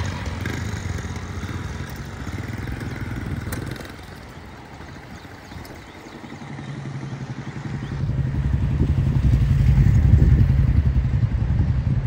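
Motor vehicles driving past with a low engine drone: one passing in the first few seconds and fading, then another building from about halfway and loudest near the end.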